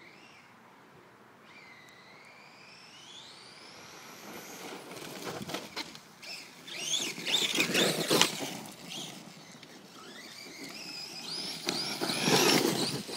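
Redcat Earthquake 8E electric RC monster truck's motor whining, rising in pitch as it speeds up. It then makes two louder passes, about seven and twelve seconds in, with the motor whine over a rough rush of tyres.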